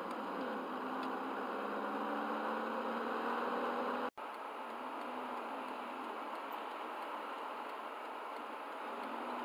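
Steady road and engine noise inside a moving car's cabin, with a brief dropout to silence about four seconds in.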